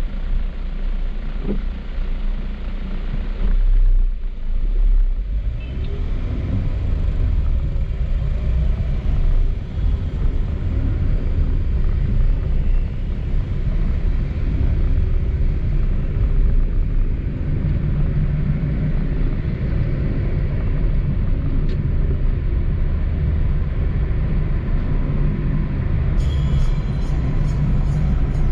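Car driving on wet roads: a steady low rumble of engine and road noise.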